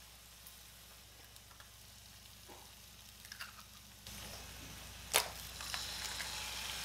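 Eggs cracked onto a hot griddle: near-quiet at first, then a sizzle starts about four seconds in as the first egg hits the surface. A sharp crack of an eggshell follows about a second later, and the sizzle grows as the second egg goes down.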